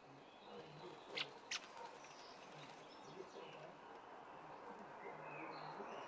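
Faint outdoor bird sounds: scattered short chirps, with two sharp, brief notes close together about a second in.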